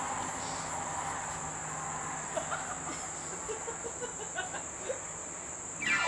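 Steady, high-pitched drone of a summer insect chorus, with a few faint short chirps in the middle. The drone cuts off just before the end.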